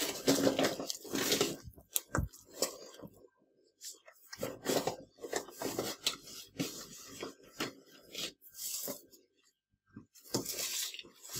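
A hand mixing and kneading flour into a soft butter, egg and oil dough in a glazed clay dish: irregular rubbing and scraping strokes, with a sharp knock about two seconds in. This is the stage where the flour is being worked into the wet mixture.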